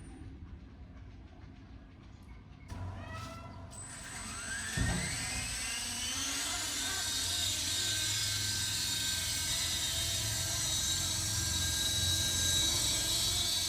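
3D-printed RC helicopter's 2700kv electric motor and rotor spooling up: a whine rises in pitch from about three seconds in, with a low thump near five seconds, then the rotor runs steadily with a high-pitched whine.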